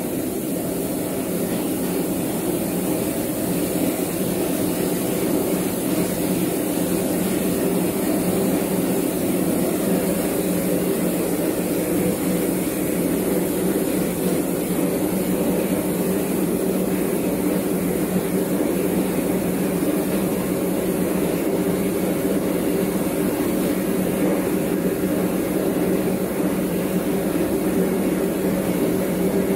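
Combined rice milling machine running: a steady mechanical drone of its motors, fans and milling, with a hum and a hiss.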